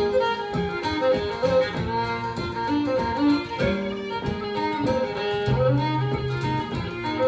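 Fiddle playing a traditional Irish tune in a quick run of notes, with strummed acoustic guitar accompaniment and a low bass line underneath.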